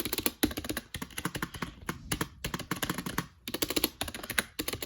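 Rapid typing on a budget wireless keyboard: a dense run of key clicks, which the typist calls pretty quiet keys. The typing breaks off briefly about two seconds in and again about three and a half seconds in.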